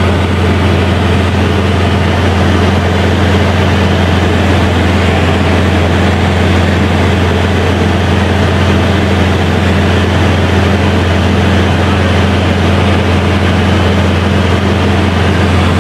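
Ultralight tow plane's engine and propeller running steadily in flight, a loud, even, deep drone heard from inside the cockpit.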